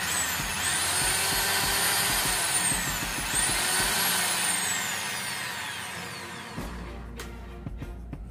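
Makita rotary hammer drill's electric motor spinning up to a high whine on a test run after repair, held about three seconds, briefly let off and re-triggered, then released and winding down with a falling pitch over about two seconds. It runs fast again: the repair has worked.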